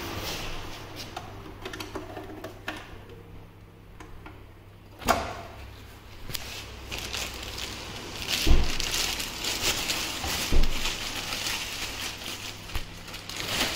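Front-loading washing machine door unlatched with a sharp click about five seconds in, then laundry pulled from the drum and stuffed into a plastic bag: rustling with two dull thumps, over a steady low hum.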